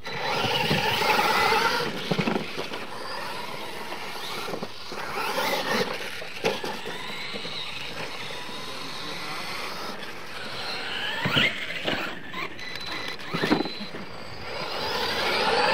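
Brushless electric motors and drivetrains of Losi LMT radio-controlled monster trucks whining as they race, the pitch climbing and dropping with the throttle. It is loudest in the first two seconds, with quick sharp revs twice near the end.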